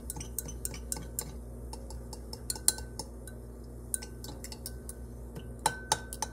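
Stirring rod clinking against the inside of a glass beaker as it stirs an Alka-Seltzer tablet dissolving in acid. The light, irregular clicks come a few a second, and a few sharper clinks ring briefly.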